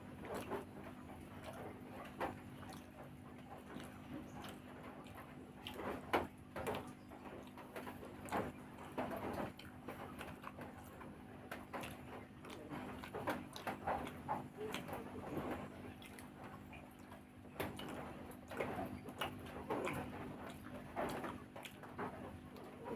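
A person chewing and eating, with irregular wet mouth and smacking sounds, over a steady low hum.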